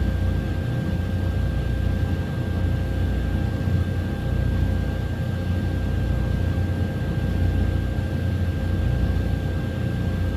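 A 2014 Chevrolet Silverado's 4.3-litre V6 idles steadily, with a faint constant whine over the engine sound, while a purge test draws the fuel tank down to vacuum.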